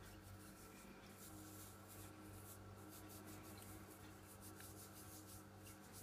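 Faint, scratchy rubbing of fingertips working a gritty powder paste over the face of a silver Maple Leaf coin, over a low steady hum.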